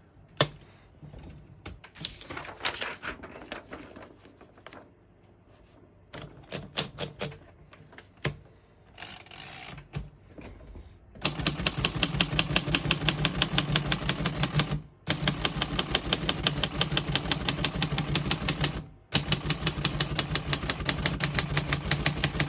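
1949 Royal Quiet De Luxe portable typewriter: first scattered clicks and short ratcheting runs as the carriage is slid and set, then about halfway in, fast, even typing of many keystrokes, broken by two short pauses.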